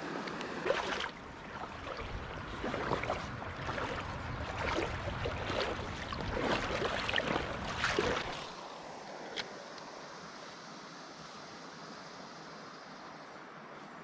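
Splashing and sloshing water for about eight seconds, then the steadier rush of a small river's current, with a single sharp click about nine seconds in.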